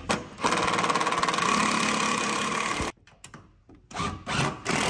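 Power driver running a railing bolt down into its drilled hole, drawing the pontoon railing down onto the fence riser. It runs steadily for about two and a half seconds and stops abruptly, then gives a few short bursts near the end as the bolt is snugged.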